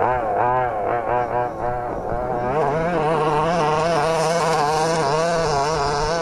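Small two-stroke petrol engine of a 1/5-scale RC car (a Zenoah) revving up and down in quick throttle blips. It then holds a steady high-pitched drone at high throttle as the car climbs a dirt hill under load.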